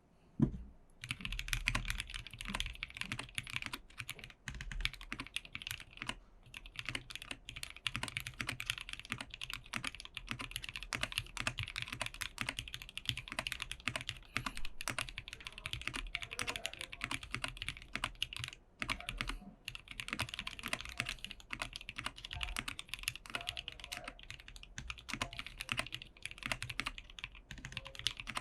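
Steady typing on a TKC Portico gasket-mounted mechanical keyboard fitted with linear switches and PBT keycaps. Fast, continuous keystrokes with a few short pauses and one sharper knock at the very start.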